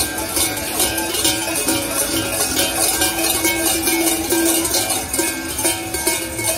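Large cowbells worn by a fur-costumed Krampus figure clanging in a steady rhythm as it walks, several strikes a second over a lingering metallic ringing.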